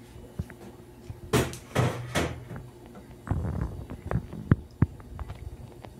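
Spoon knocking and scraping against the side of a cooking pot while stirring thickening cornmeal porridge (angu), with a run of separate knocks, several close together around the middle.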